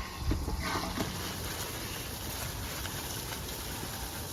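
Steady rush of running water as a 1/4 HP submersible utility pump is plugged in and starts pumping, beginning with a sharp click and a few knocks in the first second.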